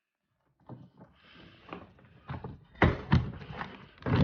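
Plastic interior door trim panel being handled and pressed back onto a car door: a soft rustle, then a run of sharp plastic knocks and clicks.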